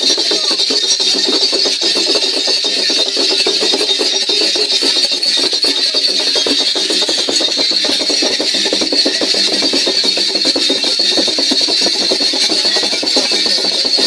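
Loud, fast, dense drumming with sticks, a steady run of knocks for the dancing.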